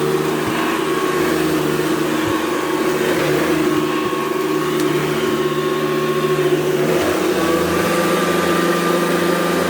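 Vintage two-speed Hoover Convertible upright vacuum cleaner running steadily with a motor hum. About seven seconds in, its pitch steps up slightly and holds.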